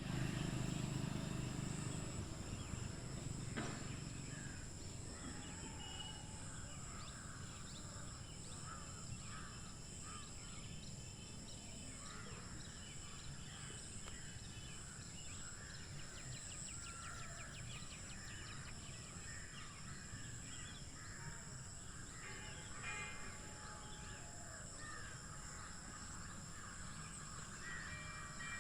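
Outdoor ambience of many birds chirping and calling, over a steady high-pitched insect drone. A low rumble is loudest in the first couple of seconds, then fades.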